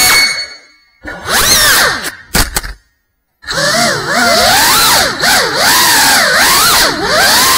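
Small FPV racing quadcopter's brushless motors and propellers whining, the pitch swooping up and down with the throttle. The whine cuts out under a second in, comes back in a short burst with a couple of sharp knocks, falls silent, then spins back up about three and a half seconds in and keeps rising and falling.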